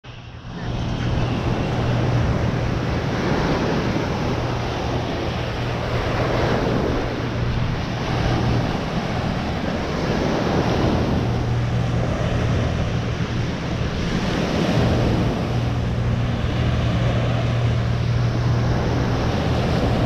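Ocean surf washing onto a sandy beach, swelling and fading every few seconds, with wind buffeting the microphone and a steady low hum underneath.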